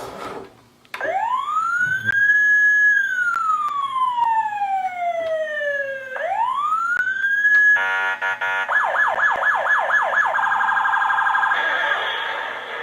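Tanka toy police car's electronic siren, set off by its sound buttons. A slow wail rises, holds, sinks slowly and rises again, then about 8 s in it switches to a fast yelp that speeds up into a rapid warble.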